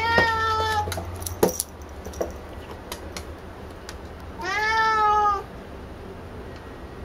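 Tabby cat meowing: two long meows, one at the start and one about four and a half seconds in, excited begging for a ball made of her own brushed-out fur. A single sharp knock about a second and a half in.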